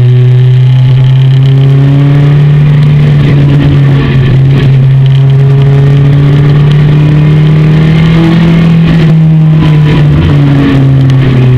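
Honda CBR929RR Fireblade's inline-four engine running loud under steady throttle, heard close from a tank-mounted camera. The engine note holds steady, rises a little past the middle, then drops back near the end.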